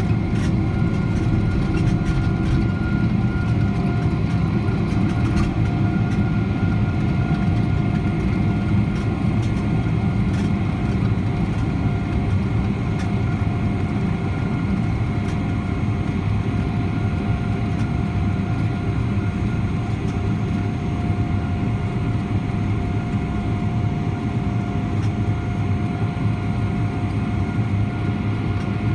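Cabin noise of a Boeing 777-300ER's GE90 engines at takeoff thrust, heard from a window seat beside the engine: a heavy steady rumble with steady whining fan tones above it, through the end of the takeoff roll, liftoff and initial climb.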